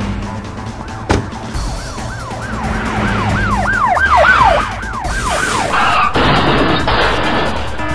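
Police car siren in a fast yelp, its pitch rising and falling about three times a second and growing louder before it stops about five and a half seconds in. A sharp click comes just before it, and a rushing noise follows.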